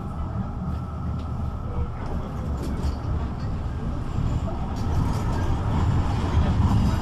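Duewag GT8 articulated tram heard from inside while under way: a low rumble of wheels and traction running gear with a steady whine above it, growing louder from about five seconds in.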